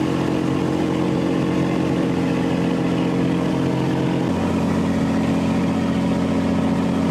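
A boat's engine running steadily, heard on board over a steady hiss; its note shifts slightly about four seconds in.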